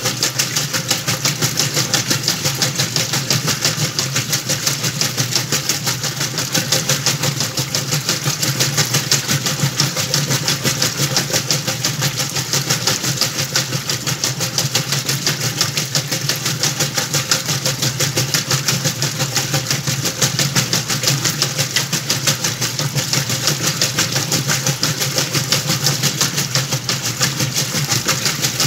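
Whirlpool washing machine running through its towel load: a steady machine hum with a fast, even pulsing and a hiss over it.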